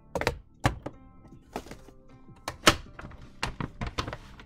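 Crafting supplies being handled on a desk: a clear acrylic stamping block and an ink pad set down and a plastic snap-button envelope of rubber stamps opened. The result is a series of sharp knocks and clicks, the loudest a little under three seconds in.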